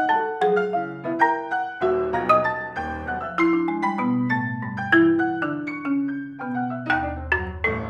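Marimba played with four mallets and a grand piano playing together in a fast duo piece, a dense run of sharply struck notes with frequent accents and some longer-ringing low notes.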